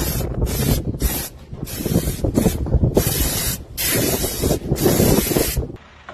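Pressurised spray hissing in about seven bursts, switched on and off, each from a fraction of a second to about a second long.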